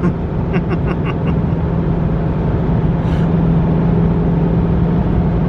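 Steady engine hum and tyre road noise inside the cabin of a Mitsubishi car driving at a constant speed.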